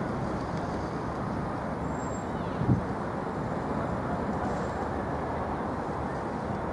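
Steady city street traffic noise, with one short thump about two and a half seconds in.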